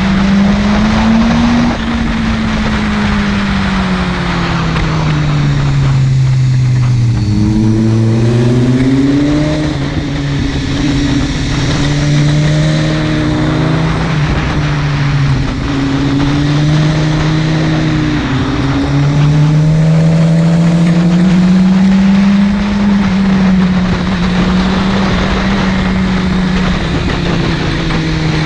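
Buell 1125CR's V-twin engine under way, its pitch rising and falling repeatedly as the throttle is rolled on and off, lowest about seven seconds in. A steady rush of wind noise runs underneath.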